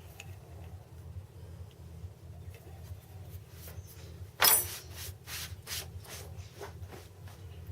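Small lathe running with a steady low hum while a hand tool scrapes the spinning timber block: one loud scrape about halfway through, then several shorter, fainter strokes.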